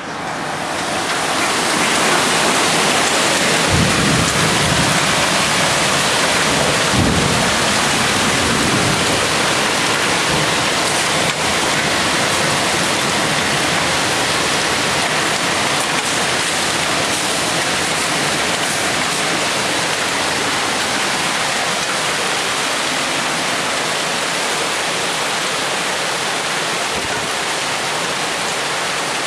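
Hail and heavy rain pelting down in a dense, steady downpour, swelling over the first two seconds, with two deep low rumbles about four and seven seconds in.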